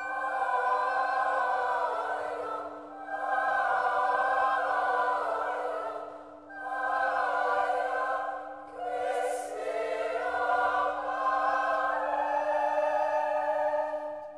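Choral classical music laid over the video: a choir singing in phrases over a steady held low note, with short breaks between phrases.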